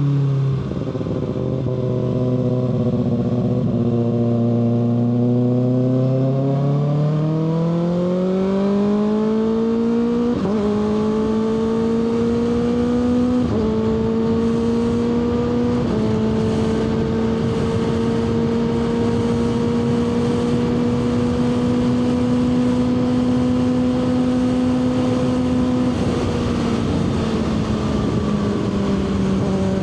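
Kawasaki ZX-6R 636 inline-four engine slowing, then accelerating up through three quick upshifts. It holds a steady cruise and eases off slightly near the end, with wind rush over the microphone.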